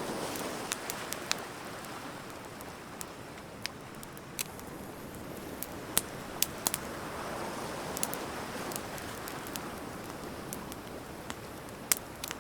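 Bonfire of burning wood crackling, with scattered sharp pops, the loudest a little before halfway and near the end. Under it, a soft wash of waves that swells and fades about two-thirds of the way in.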